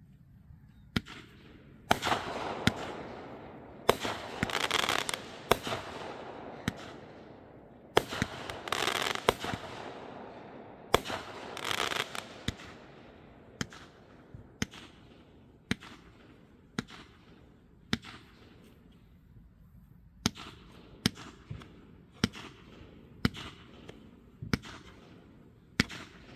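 Fireworks going off in a long string of sharp bangs. In the first half, stretches of dense crackling hiss run between the bangs. In the second half, single bursts come roughly once a second.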